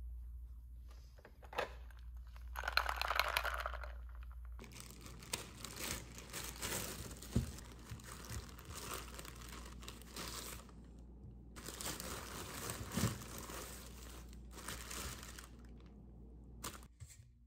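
A thin plastic produce bag crinkling and rustling as hands open it and take out potatoes, in two long stretches broken by a short pause near the middle, after a shorter rustle a few seconds in.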